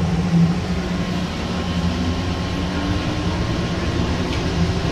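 Denver airport's rubber-tyred automated people-mover train running through its tunnel: a steady rumble with a constant hum, and a faint motor whine rising slowly over the second half.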